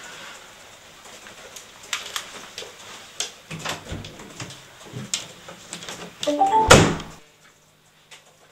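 Footsteps and small knocks, then a door creaking and shutting with a loud bang nearly seven seconds in.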